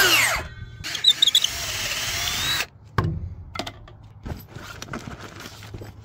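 Handheld power tool motor running in two loud bursts: the first winds down in pitch about half a second in, the second runs steadily for about a second and a half. Scattered knocks and handling clatter follow.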